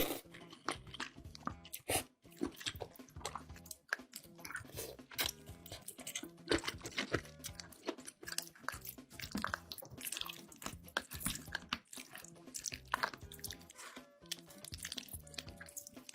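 Close-miked chewing and crunching of food, many sharp crackly bites throughout, over background music with a steady beat.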